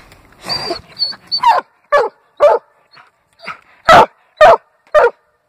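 Young bluetick coonhound barking at the foot of a tree while treeing: a string of about eight short, separate barks, the last three near the end the loudest.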